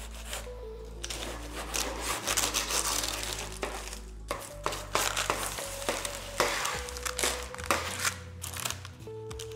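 A knife cutting and trimming the edges of a baked sweet shortcrust pastry slab, with irregular crunching and crinkling of the crust and parchment paper, starting about a second in. Soft background music with held notes plays underneath.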